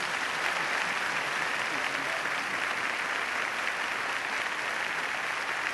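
Large audience applauding steadily, a sustained wash of clapping.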